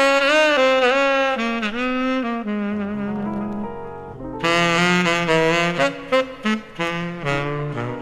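Tenor saxophone playing a jazz ballad melody with vibrato over a bass line; one phrase tapers off midway and a new, louder phrase begins about halfway through.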